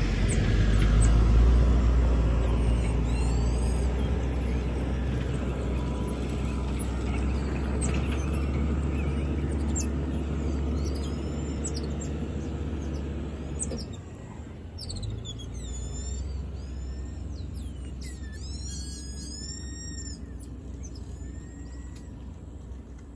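A low engine rumble that drops away about two-thirds of the way through, with small birds in the tree giving short, high chirping calls throughout and a quick run of them near the end.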